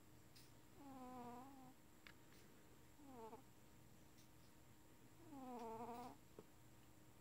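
Domestic cat snoring in its sleep: three faint, pitched, squeaky snores about two seconds apart. The middle snore is shorter than the other two.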